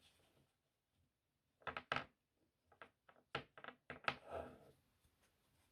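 Playing cards handled quietly: a few crisp taps and flicks about two seconds in, several more over the next two seconds, then a short rustle.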